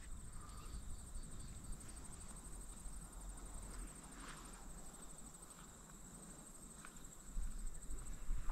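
Faint steady insect trill, a high, fast-pulsed chirr that keeps going throughout, over a low rumble.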